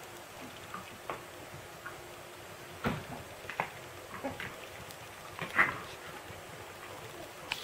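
Siberian husky puppies play-fighting, giving short high yips and squeaks, several scattered ones with the loudest about five and a half seconds in.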